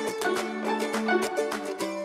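Background music: plucked-string instruments over a quick, steady beat.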